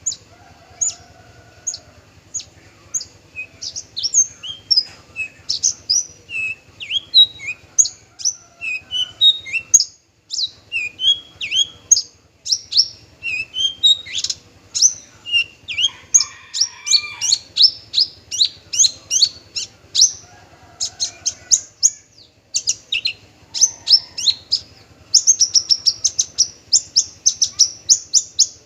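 Male Javan bush lark (branjangan) singing a long, varied song of quick chirps and sweeping whistled notes, breaking into a fast run of rapidly repeated notes near the end.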